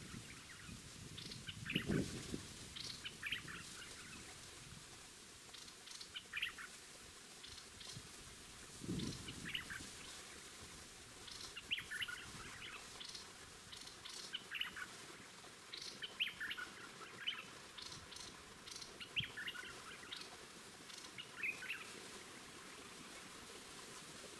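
Small songbirds chirping and calling in short, scattered notes, several every few seconds, with two low soft thumps about 2 and 9 seconds in.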